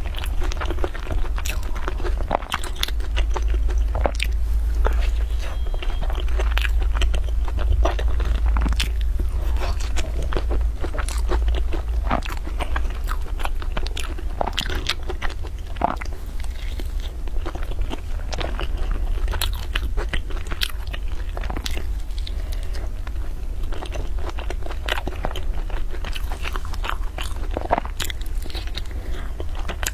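Biting into and chewing crisp, flaky baked pastry: a dense run of sharp crunches and crackles, several a second, over a steady low hum.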